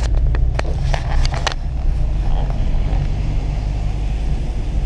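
Inside a 2015 Renault Sandero 1.6 moving slowly: a steady low rumble of engine and tyres on a rough, muddy, broken road. Several sharp clicks or knocks come in the first second and a half.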